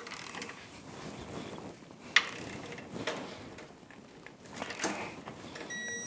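Ratchet-head torque wrench, set to 39, tightening cap bolts: clicking ratchet strokes, with a sharp click about two seconds in as the wrench reaches its set torque. A brief high tone sounds near the end.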